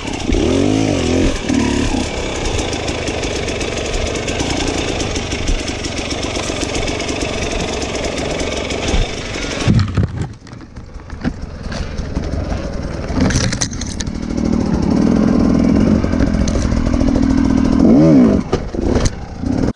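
Enduro motorcycle engine revving up and down as the bike is picked slowly over ruts and rocks. About halfway it drops to lower running, then is blipped again several times near the end.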